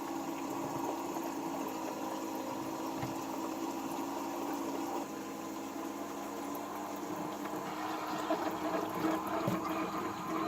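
Grobo One's small water pump running steadily, humming as it pumps water into the reservoir with a continuous splashing, gurgling fill, a little louder and busier toward the end as the reservoir nears full.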